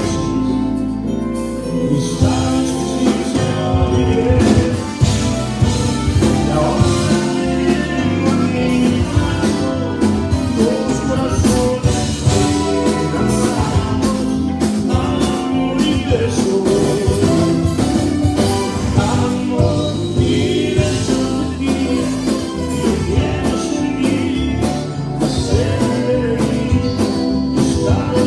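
Live conjunto band music: button accordion, electric guitars and drum kit playing a steady beat, with a male lead vocalist singing into a microphone.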